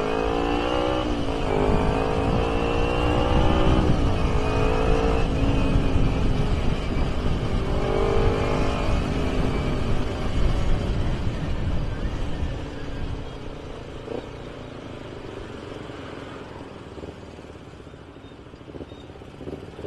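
Kawasaki Ninja 250R's carburetted parallel-twin engine through an AHM carbon racing exhaust, accelerating hard: the revs rise and break with each upshift several times in the first nine seconds. After about twelve seconds it eases off to a quieter cruise. The exhaust note is mellow ("adem") and round rather than cracked as the throttle is opened.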